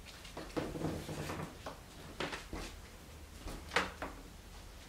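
Soft handling sounds: a few brief knocks and rustles as a plastic water bottle and a towel are handled on a kitchen counter, the loudest knock about three-quarters of the way through.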